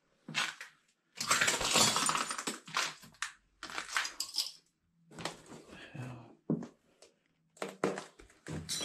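Irregular bursts of crunching and rustling noise, some drawn out, some short and sharp.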